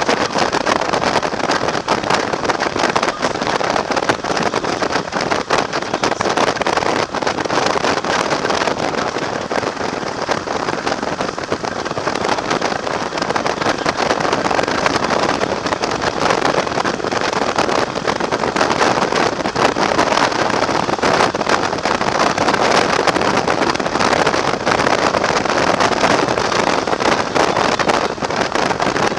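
Steady rush of wind over the microphone of a motorcycle cruising at road speed, mixed with the bike's engine and road noise, with no change in pace.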